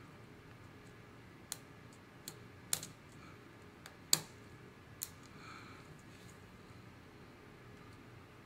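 Scattered sharp plastic clicks from a MacBook Pro's keyboard keycaps being pressed or snapped into place, about six irregular clicks with the loudest about four seconds in.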